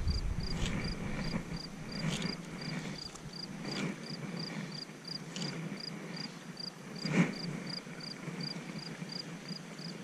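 Insect chirping steadily, about three short high chirps a second, with a few soft clicks from handling the fly line and rod; the loudest click comes about seven seconds in.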